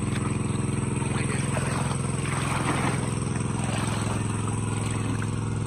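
Small engine-driven water pump running steadily at constant speed, draining the pond. About one and a half to three seconds in, rustling and splashing of hands digging in the wet mud and grass of the bank.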